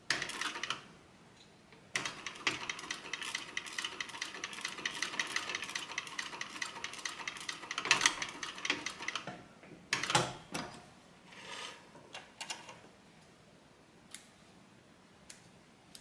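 Cylinder-arm leather sewing machine stitching a line of top stitching through a narrow strip of leather: a steady, rapid run of needle strokes lasting about seven seconds that then stops. A few short knocks follow as the work is handled.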